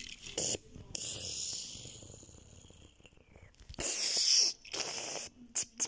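A child's breathy whooshing and hissing mouth noises, made as play sound effects for a toy car, in a string of short bursts with the loudest a little under a second long about four seconds in and several quick ones near the end.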